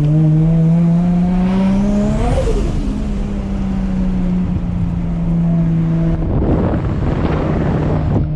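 Turbocharged RB25DET straight-six in an R33 Skyline pulling hard, rising in pitch with a climbing turbo whistle, then dropping sharply at a shift about two seconds in. It holds a steady note, and about six seconds in the throttle comes off and a loud hissing, fluttering rush of turbo air takes over.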